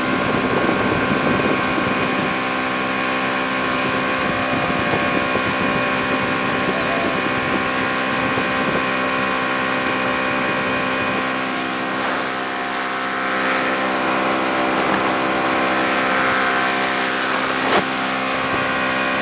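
Motorboat engine running steadily at towing speed, a constant droning hum over rushing water and wind buffeting the microphone, with a brief knock near the end.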